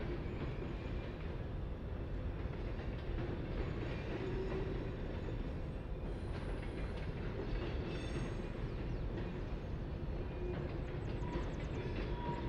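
A steady low rumbling noise, like a heavy vehicle or train running, with faint thin tones over it and a brief run of faint fine ticks near the end.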